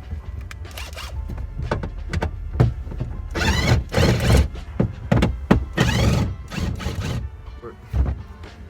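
Hands working at a car's rear bumper fasteners: a run of clicks and knocks, with two rasping, ratchet-like sounds about a second long, around a third and two thirds of the way through.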